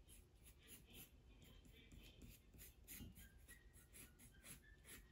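Pencil drawing on paper: faint, quick repeated strokes scratching lightly across the sheet as an oval is sketched.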